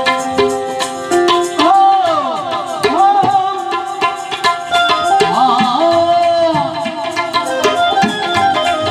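Indian devotional folk music: tabla playing a quick, steady rhythm under held notes and a gliding, bending melody line.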